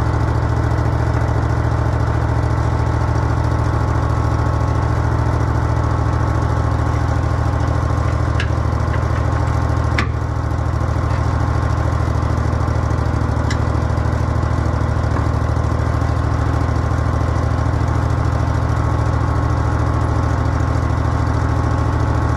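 Bobcat 444 skid steer's 23-horsepower Briggs & Stratton Vanguard V-twin gas engine idling steadily. A few sharp clicks are heard over it, at about 8, 10 and 13 seconds in.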